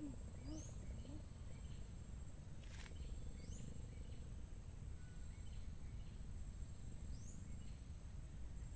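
Outdoor riverside ambience: a steady high-pitched insect drone over a low rumble of wind, with three short rising chirps.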